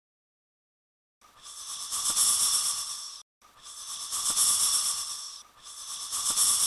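Snake hissing: after about a second of silence, three long hisses of about two seconds each, each swelling and fading, with the third still going at the end.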